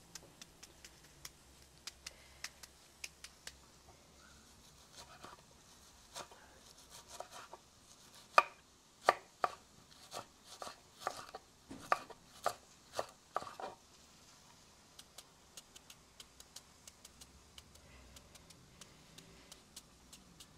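Kitchen knife chopping a white onion on a wooden cutting board: a long run of quick light taps, with a stretch of louder, slower strikes in the middle.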